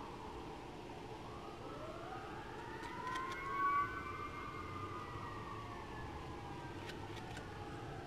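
A faint siren wailing, its pitch slowly rising and falling over a few seconds with overlapping sweeps, loudest about halfway through.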